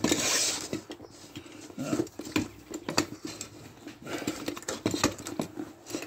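Hands forcing a wheelbarrow tyre over the lip of its metal rim: rubber rubbing and scraping, with scattered light clinks and knocks of a metal tyre lever against the rim. A faint steady hum runs underneath.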